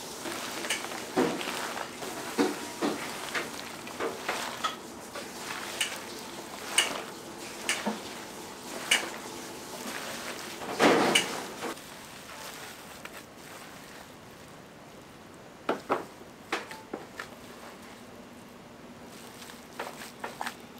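Gloved hands mixing and kneading a wet croquette filling of chopped egg and vegetables in a large stainless steel bowl: a squelching, rustling stir with irregular clicks and knocks against the bowl, the loudest clatter about eleven seconds in, quieter after about twelve seconds.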